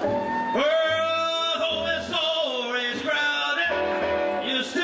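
Rockabilly trio playing live, a male lead singer belting long held notes over the band's bass and guitar.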